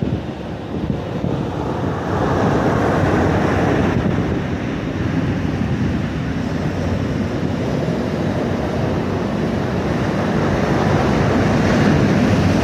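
Steady wash of breaking ocean surf, with wind rumbling on the microphone. The level dips briefly about a second in, then holds steady.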